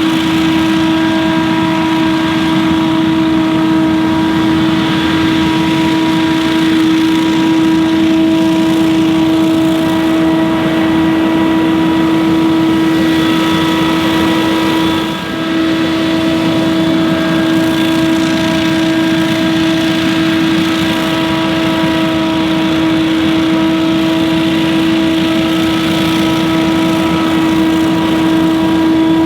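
Scag Windstorm stand-on leaf blower running steady at high speed: an engine-driven fan rushing air with a constant, even whine, briefly dipping once about halfway through.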